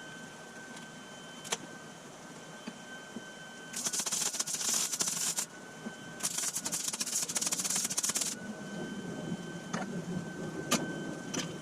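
Lincoln Electric 140 MIG welder running on shielding gas, its arc crackling in two bursts of about one and a half and two seconds as welds are laid on steel tubing. A faint steady high whine runs under it, with a few light clicks.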